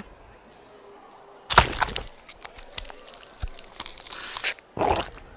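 Cartoon eating sound effects of a green treat being bitten into and chewed. A sharp crack comes about a second and a half in, then a quick, uneven run of crunching and smacking noises, with another loud bite near the end.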